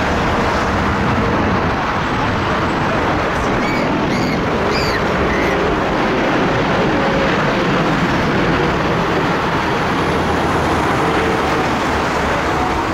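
Four GEnx-2B turbofan engines of a Boeing 747-8F on final approach, a steady jet roar at approach power as the aircraft passes low overhead.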